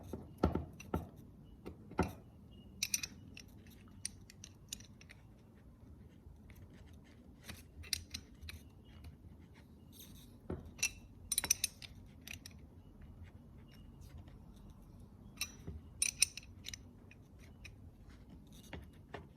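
Metal hose fitting on an air compressor hose being screwed onto its thread by hand: scattered light metallic clicks and taps, some in small clusters, over a faint low background hum.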